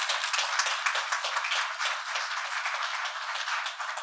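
Audience applauding, many hands clapping in a steady, even patter.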